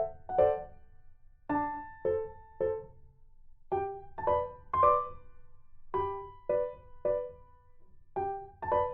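Background music: a simple piano-like melody of single struck notes, about two a second, each fading away.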